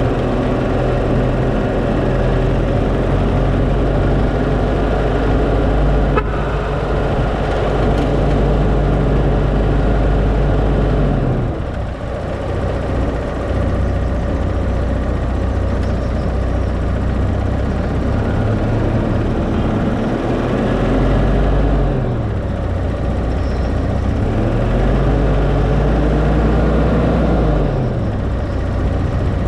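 Engine of a vehicle being driven, running steadily over road noise. About a third of the way through the engine note drops. It then rises and falls in pitch twice as the vehicle speeds up and eases off.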